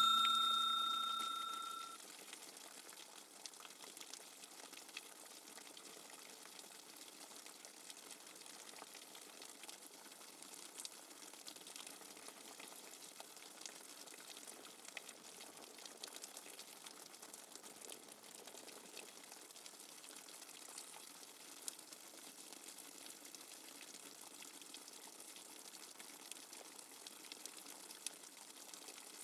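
Steady light rain without thunder: a faint, even hiss with scattered drop ticks. Near the start, a bell-like ringing tone dies away over about two seconds.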